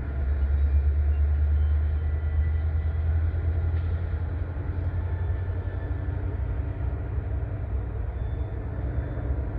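Distant diesel locomotive engines running in a freight rail yard: a steady low rumble that is strongest in the first couple of seconds and eases a little after. Faint thin high squeals of steel wheels come and go.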